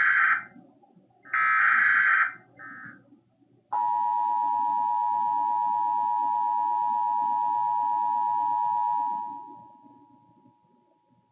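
End of an Emergency Alert System SAME header: short bursts of buzzy digital data tones, then about four seconds in the steady two-tone EAS attention signal starts sharply, holds for about five seconds and fades out.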